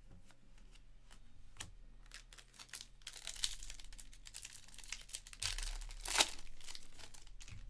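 Foil wrapper of a Bowman Draft baseball card pack being torn open and crinkled, loudest in a rip about six seconds in. Light clicks of cards being handled come before it.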